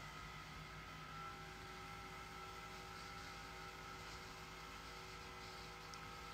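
Faint steady hum and hiss with a few thin steady tones: quiet room tone.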